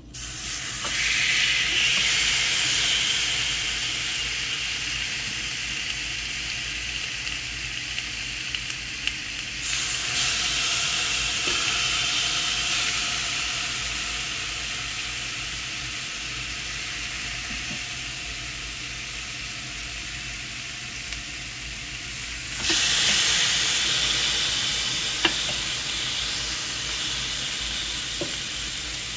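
Marinated pork chops sizzling on the hot grill grate of a Ninja Foodi indoor grill. The sizzle jumps up each time another chop is laid down, at the start, about ten seconds in and about two-thirds of the way through, and slowly eases after each. A few light clicks near the end.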